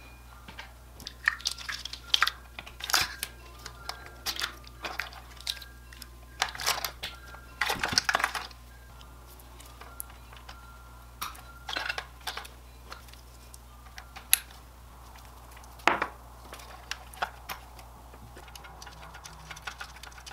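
Plastic wiring-harness connectors and cables being handled and plugged into the back of a car-stereo head unit: irregular clicks, rattles and rustling, with a longer rattle about eight seconds in and a sharp snap of a connector latching about fourteen seconds in.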